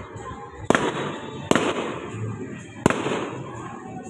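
Aerial fireworks bursting overhead: three sharp bangs in quick succession, each trailing off, with another bang just at the end.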